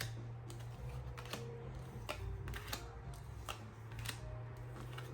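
Tarot cards being handled and laid down on a table: irregular light clicks and taps as the cards touch the surface and each other, over a steady low hum.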